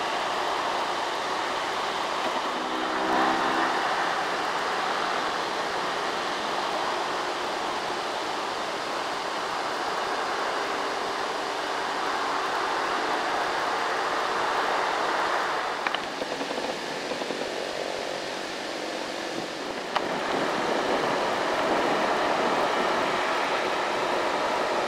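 Road traffic on an uphill road: loaded light diesel dump trucks labouring up the incline with motorcycles passing, heard as a steady rush of engine and tyre noise. The sound changes abruptly twice in the second half.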